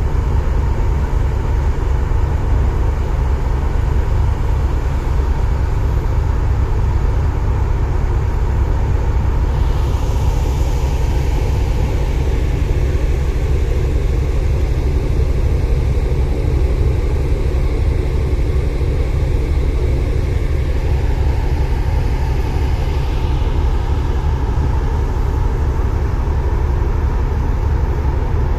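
Steady low rumble of a ferry under way heard from its open deck: wind buffeting the microphone over the hum of the ship's engines. A higher hiss joins from about a third of the way in until past the middle.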